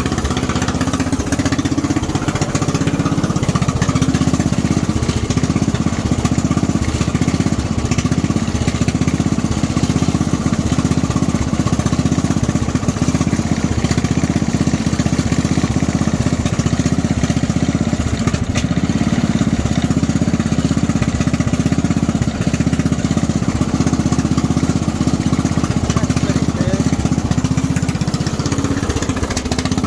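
Lawnmower's small petrol engine running steadily at a constant speed, running on the little fuel left in its tank.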